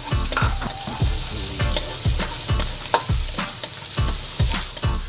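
Minced garlic sizzling in hot oil in a wok while a spatula stirs it. Steady low thumps run underneath about twice a second.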